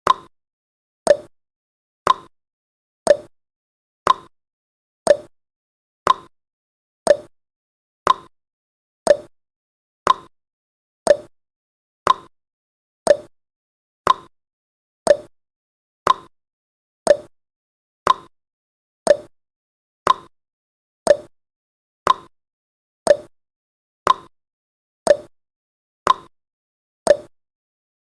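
Countdown timer tick sound effect: one short, sharp tick every second, evenly spaced, each dying away quickly.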